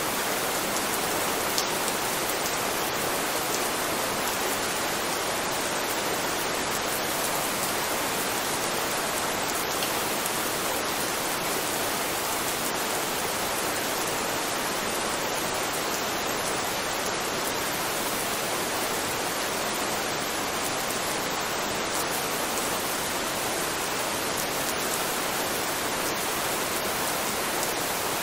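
Steady rain, an even hiss with a few faint drop ticks. It is played as a calming ambience track that masks subliminal affirmations.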